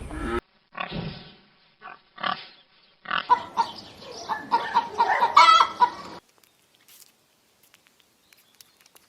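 Chickens clucking and squawking: a couple of short calls, then a busy run of clucks for about three seconds, stopping abruptly around two-thirds of the way through.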